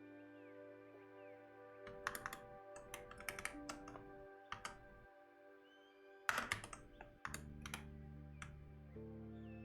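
Typing on a computer keyboard in quick bursts of key clicks, starting about two seconds in, pausing, then a louder flurry around six seconds, over soft background music with long held notes.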